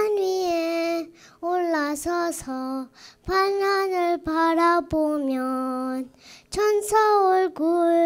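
A young girl singing unaccompanied into a microphone: held notes in short phrases, with brief pauses for breath between them.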